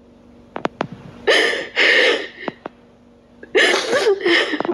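A woman sobbing: two pairs of sharp, gasping breaths with a catch of voice in them, and small clicks of the mouth and throat in between.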